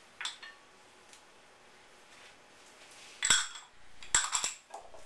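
A metal utensil knocking and clinking against a mixing bowl as herb butter is stirred by hand: a light knock near the start, a loud ringing clink about three seconds in, then a quick run of three or four clinks a second later.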